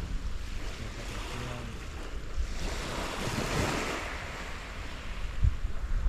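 Sea waves washing onto the shore, one swelling and breaking about halfway through, with wind rumbling on the microphone.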